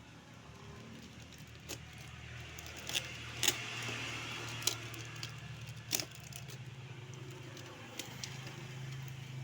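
A shipping package being opened by hand: about six sharp cracks and snaps with rustling between them, the busiest stretch in the middle, over a steady low hum.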